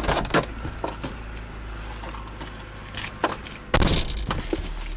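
Handling noises inside a car: a few sharp clicks and knocks, then loud rustling and crinkling near the end as a foil toaster-pastry packet is picked up, over a low steady hum.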